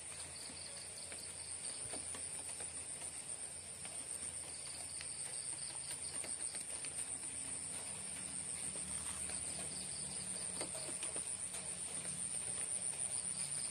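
Night insect chorus: a steady high-pitched trill, joined now and then by a second, lower pulsing insect call.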